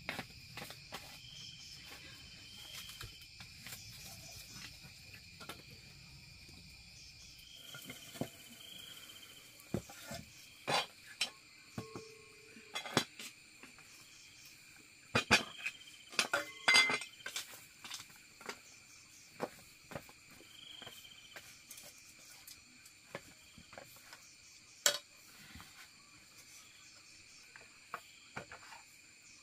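Metal spoon and ladle clinking against metal cooking pots and a bowl in scattered sharp knocks, busiest midway through, over a steady high trill of insects.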